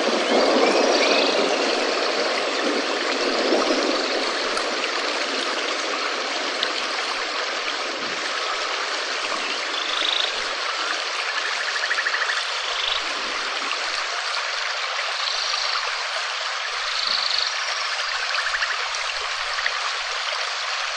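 Steady rain falling, an even hiss that is a little heavier in the first few seconds. Faint short high chirps come now and then.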